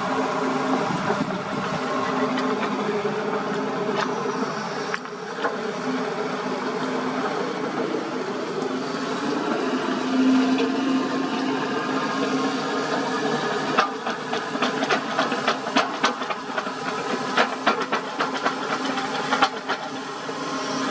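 Sany SY75C excavator's diesel engine running steadily with a hiss. About two-thirds of the way in, a quick series of sharp knocks and clatters starts.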